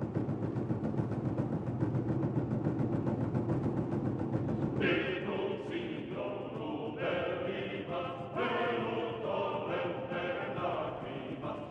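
Choral background music: a low, dense sustained passage, then voices singing held notes that enter higher about five seconds in.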